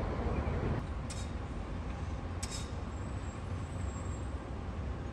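City road traffic: a steady rumble of buses and cars, with two short high-pitched bursts about one and two and a half seconds in.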